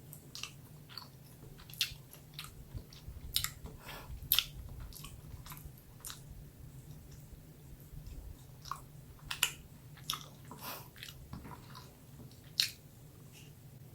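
Close-miked chewing and biting: irregular wet mouth clicks and small crackles, with a steady low hum underneath.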